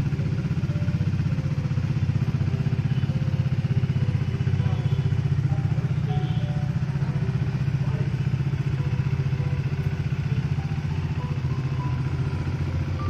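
Motorcycle engine idling steadily, with a low, fast, even exhaust pulse.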